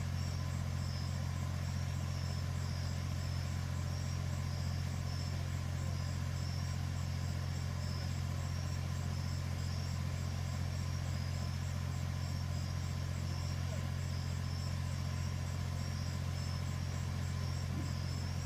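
Steady low hum of an idling car engine, even throughout, with a faint pulsing insect chirping high above it.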